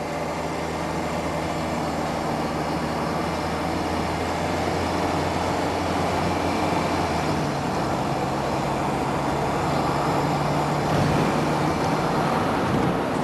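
Inside the cabin of a 1995 Toyota Granvia, its three-litre turbo-diesel engine pulling at motorway speed: a steady low drone mixed with road and wind noise, growing slightly louder as the van gathers speed. About halfway through, the lowest note of the drone fades out.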